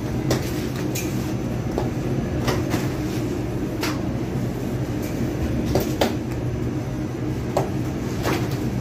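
Steady low machinery hum in a bakery, with irregular sharp knocks and clacks as dough is torn off, weighed on a metal balance scale and set down on a steel worktable.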